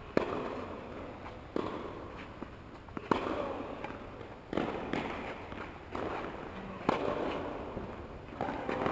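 Tennis balls struck by rackets, a series of sharp pops about every second and a half, each ringing briefly in a large indoor tennis hall.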